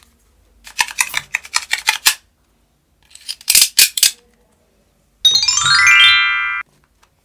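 Sharp plastic clicks and clacks from a toy dart gun being handled, in two quick runs. These are followed by the loudest sound: a bright synthesized chime run of quickly stepping notes used as a transition effect, held for about a second and then cut off abruptly.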